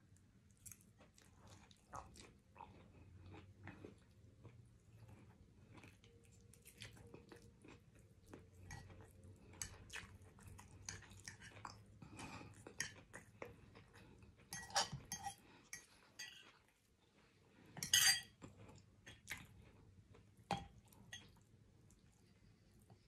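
Close-up chewing of neck bones and Brussels sprouts, with a metal fork clinking and scraping against the bowl. Scattered sharp clicks throughout, the loudest about 15 and 18 seconds in.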